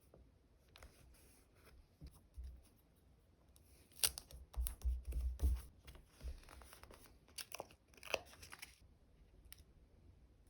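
Stickers and plastic packaging being handled: crackly peeling and crinkling, busiest in the middle, with a few soft low thumps.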